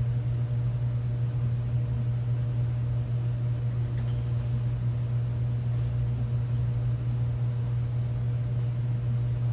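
A steady low machine hum with a faint hiss.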